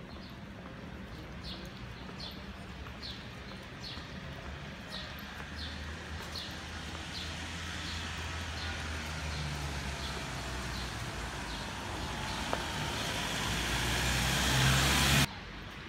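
Vehicles driving along a rain-soaked street: engines running and tyres hissing on the wet asphalt, building louder toward the end and cutting off suddenly.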